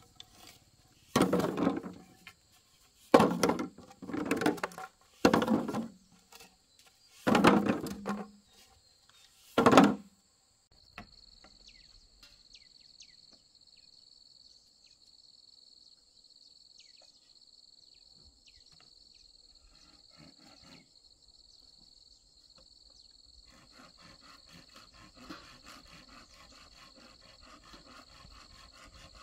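Six rough rasping strokes of a hand tool working bamboo, each under a second and spaced a second or two apart. They stop about ten seconds in, leaving an insect trilling faintly with a steady pulsing chirp.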